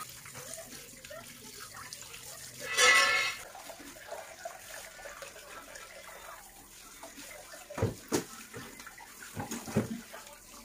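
Tap water running into a stainless steel sink while fish are rinsed by hand and drained in a plastic colander over a bowl. A short, loud pitched sound comes about three seconds in, and a few sharp knocks of plastic against the sink come near the end.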